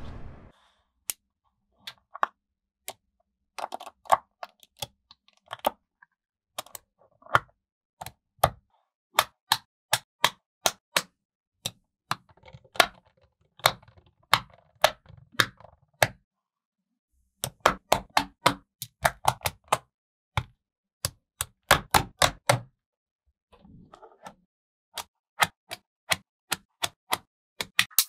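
Small neodymium magnetic balls clicking sharply against one another as they snap into place, one click at a time and now and then in quick runs of several, with silence between.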